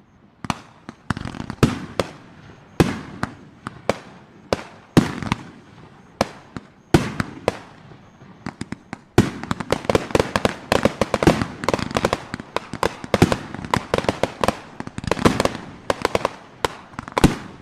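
Fireworks crackling: an irregular string of sharp cracks and pops, which comes much thicker and faster about halfway through.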